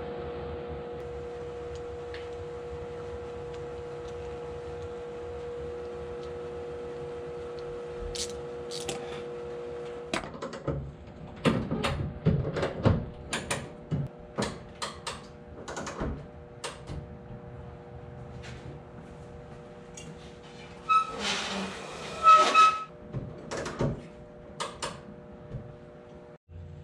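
A steady hum with a clear tone, which stops about ten seconds in. Then a run of knocks and clatter as the overhead rope-and-pulley boat lift is worked by hand, with a short, loud, rasping squeal about two-thirds of the way through.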